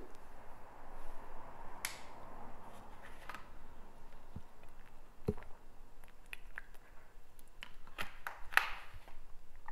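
Quiet room tone with a few faint, scattered clicks and light taps.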